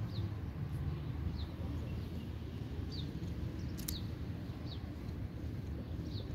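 Small bird chirping outdoors: short, falling chirps about every second or so over a steady low rumble, with one sharp click near the middle.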